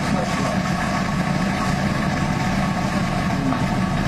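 Steady low mechanical hum with a hiss over it, even in level throughout.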